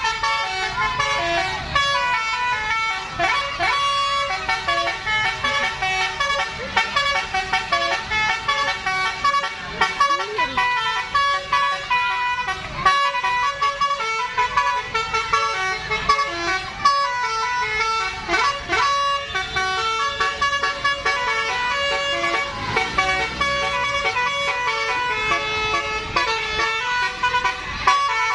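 Indonesian bus 'telolet' basuri horn, a multi-note electric horn, playing a fast melody of stepping notes without a break, with a few sliding notes now and then.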